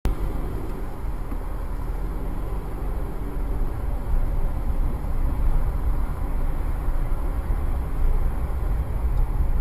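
Steady low rumble of a car's engine and tyres while driving slowly, picked up by a dashcam.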